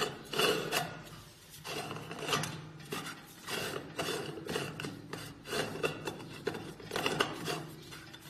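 Metal scraping and clinking in irregular strokes as the spiral shaft of a JGL80 dumpling machine is turned by hand and screwed down into its stainless-steel hopper.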